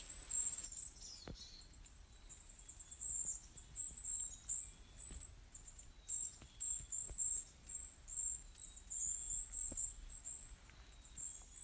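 High-pitched bird chirps repeating throughout, several short notes every second.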